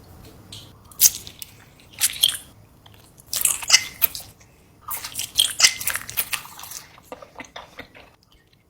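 Close-up sounds of a person biting into and chewing a lemon: several wet, crunching bites in bursts, then a few faint mouth clicks near the end.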